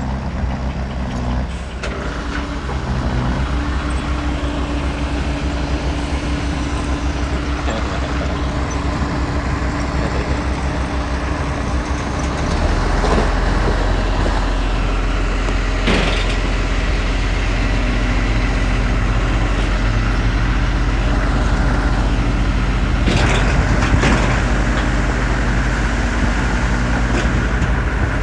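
Diesel engine of heavy earthmoving machinery running under load, its pitch stepping up and down, with the low rumble growing louder about twelve seconds in. A few sharp knocks cut through near the middle and toward the end.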